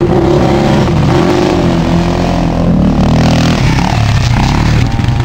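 2008 Yamaha Raptor 700 quad's single-cylinder four-stroke engine revving hard, its pitch rising and falling with the throttle as it runs up to and over a sand jump close by.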